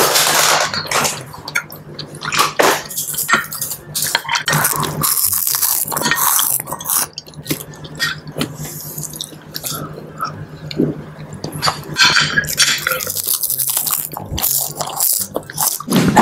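Close-miked eating of seblak: slurping of spicy broth and wet chewing, with metal spoons clinking and scraping against a glass baking dish in an irregular run of small clicks.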